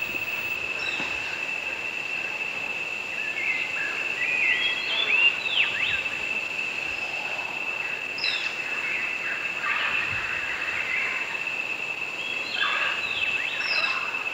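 Tropical rainforest ambience: a steady, high insect drone with clusters of chirping, sweeping bird calls about four seconds in, again about eight seconds in and near the end.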